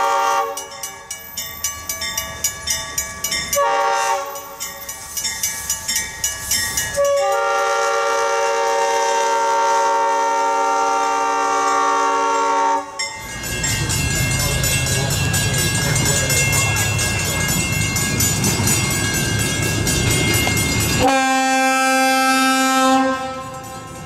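Diesel locomotive's multi-chime air horn blowing for a grade crossing: a short blast a few seconds in, then a long blast of about six seconds. The locomotive then passes close by, engine rumble and wheels on the rails. Near the end a different train horn sounds for about two seconds.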